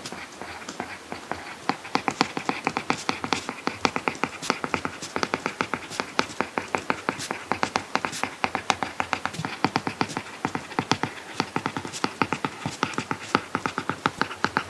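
Apple Pencil tip tapping and scratching on an iPad Pro screen fitted with a matte paper-like protector, in handwriting: a quick, uneven run of small clicks, several a second.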